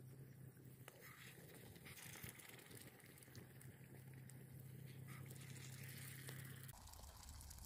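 Near silence: a faint steady low hum with a few faint clicks, the hum dropping lower in pitch near the end.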